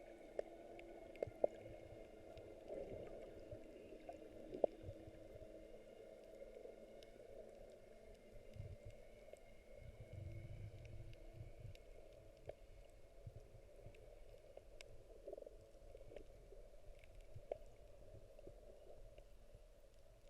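Faint, muffled underwater sound as picked up by a camera in a waterproof housing while snorkelling, with scattered small clicks and crackles.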